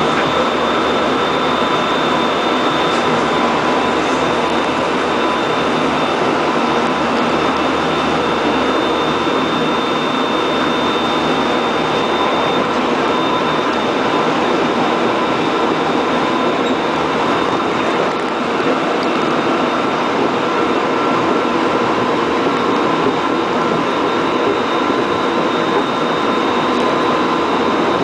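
Korail 311000-series Seoul Subway Line 1 electric train running at speed, heard from inside the passenger car: a steady, even running noise of wheels on rail, with a few thin, steady high tones over it.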